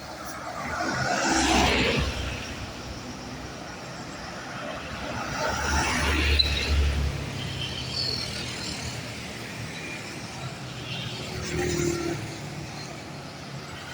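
Diesel engine of a Mercedes-Benz OH 1525 bus running, swelling to a deep rumble about halfway through, amid other passing vehicle noise that rises and falls a couple of times.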